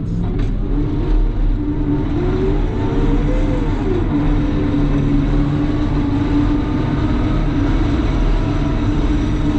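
Caterpillar loader's diesel engine running steadily, with a higher tone that wavers up and down for a couple of seconds near the middle.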